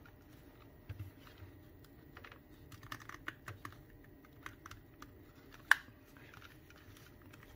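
Scattered small plastic clicks and scrapes of a plastic pry tool being worked into the seam of a JBL E65BTNC headphone ear cup, with one sharper click about three-quarters of the way through.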